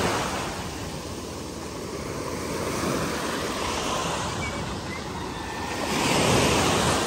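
Sea waves breaking and washing on the shore, with one wave swelling louder about six seconds in.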